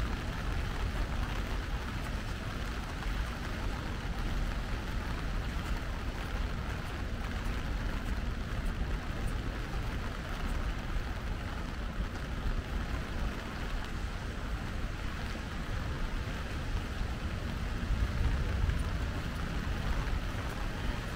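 Steady rain falling on an umbrella overhead and on wet paving, an even hiss with a low rumble underneath.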